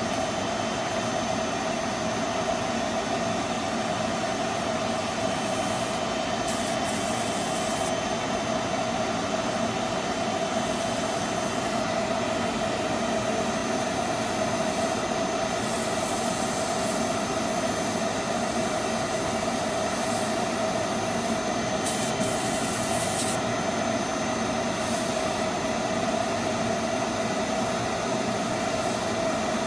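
Steady motor drone of a stain-removal spotting machine, with short bursts of hiss from its spray gun about six seconds in and again about twenty-two seconds in.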